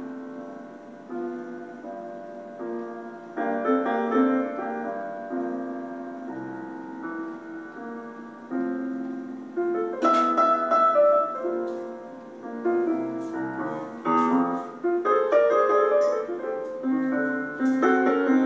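Solo piano music playing, sustained chords and melody notes in a slow, gentle style.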